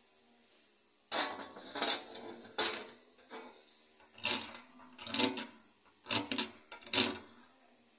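A small stone scraped repeatedly across the rough surface of a dark grey rock: about eight rasping strokes, each under a second apart, starting about a second in.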